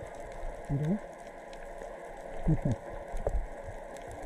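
Humpback whale song heard underwater: a few short calls that sweep up and down in pitch, about a second in and again around two and a half seconds, over a steady crackling hiss of the sea.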